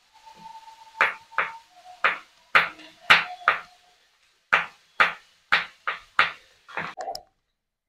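Kitchen knife chopping pieces of fresh coconut on a wooden cutting board: about a dozen sharp strikes at an uneven pace of roughly two a second, with a short pause near the middle.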